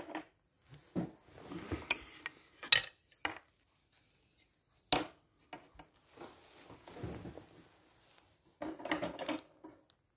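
Wooden spoons and hand tools being handled and set down on a cloth-covered table: scattered rustling and scraping with a few sharp knocks and clicks.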